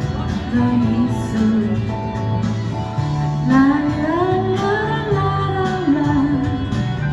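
A song performed with singing over acoustic guitar: a voice carries a gliding melody line, loudest from about three and a half seconds in, over the guitar's steady accompaniment.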